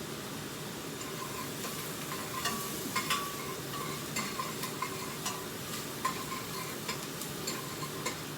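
Onion, ginger and freshly added garlic sizzling in oil in a pot, with a utensil stirring and scraping against the pot now and then.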